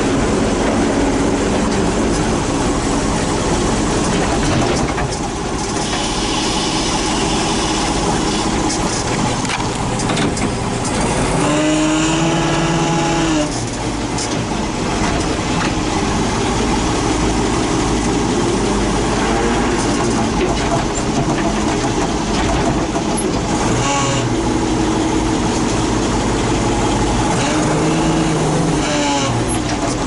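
Loader tractor engine running, heard from the operator's seat, its note rising and falling under load about twelve seconds in and twice more in the second half as the loader works a log.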